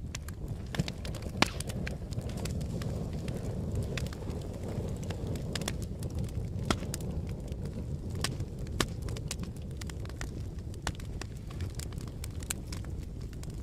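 Fire burning with a steady low rush and irregular sharp crackles and pops, a few louder snaps standing out.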